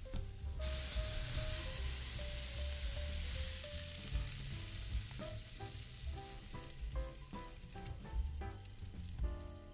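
Food sizzling in a hot frying pan: a hiss that sets in suddenly about half a second in and slowly dies away over the next few seconds. Background music with a melody plays throughout.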